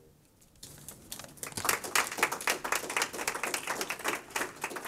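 Small audience applauding, the claps starting about half a second in as an irregular run of sharp hand claps.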